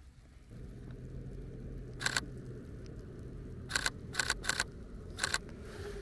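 Camera shutter firing five times: once about two seconds in, then a quick run of three about a second and a half later, and a last one near the end. A low steady rumble runs underneath.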